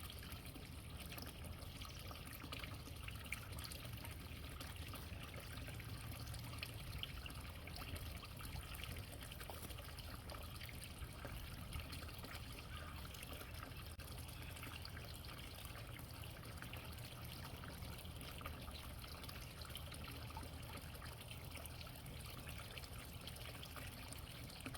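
Water trickling steadily into a pond, with faint small splashes, over a low steady hum.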